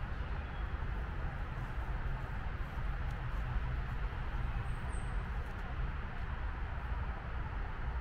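Steady low rumble and hiss of outdoor background noise, with one short, high bird chirp about five seconds in.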